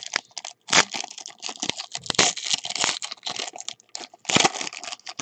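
Foil wrapper of a trading-card pack crinkling and tearing as it is ripped open by hand. It is a crackly run of rustling, with sharper rips about a second in, at two seconds and near the end.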